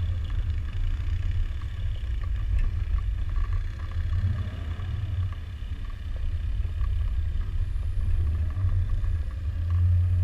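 Land Rover Discovery 2 driving slowly along a rutted mud trail: a steady low rumble of engine and running gear, with faint light rattles.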